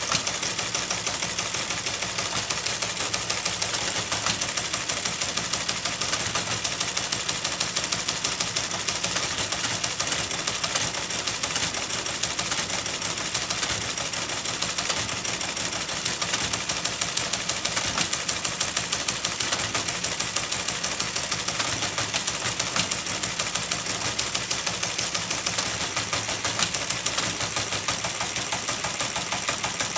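Electromechanical teleprinter printing text, a fast, steady clatter of type strikes over its running motor.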